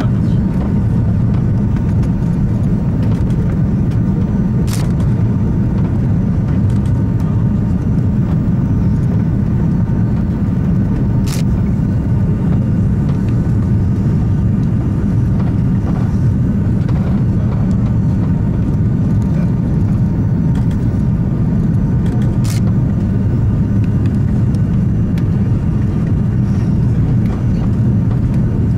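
Steady cabin noise inside an Airbus A340-300 descending on approach: a loud, even low rumble of the four CFM56 engines and airflow, with a faint steady whine over it. Three brief faint clicks are heard, about five, eleven and twenty-two seconds in.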